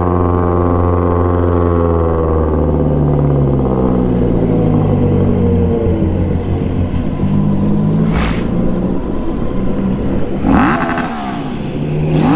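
Loud vehicle engines on the street. The engine note slows in pitch over the first few seconds, runs on rougher, then revs up and down again near the end, with a brief hiss about eight seconds in.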